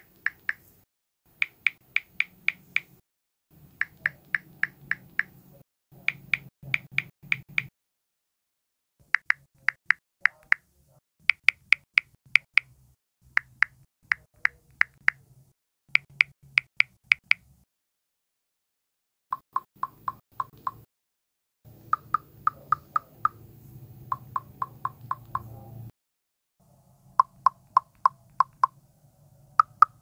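Samsung Galaxy phone keyboard keypress sounds: short pitched ticks in quick runs of four to six taps, about four a second, with short pauses between runs. From about two-thirds in, the ticks are lower-pitched, which is the Fun sound theme's key sound replacing the Calm theme's.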